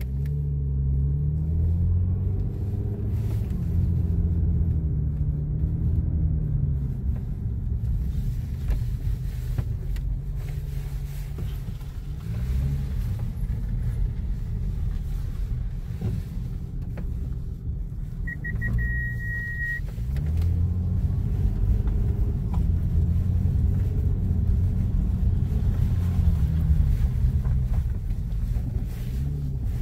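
Car engine and road rumble heard from inside the cabin, the engine's pitch rising and falling several times as the car speeds up and slows. Just after two-thirds of the way through comes a short electronic beep: a few quick pips, then a steady tone for about a second and a half.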